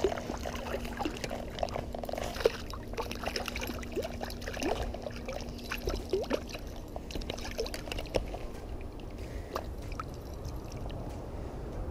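River water splashing and dripping around a small hooked trout as it is brought in and handled at the surface: a scatter of small splashes, plops and trickles.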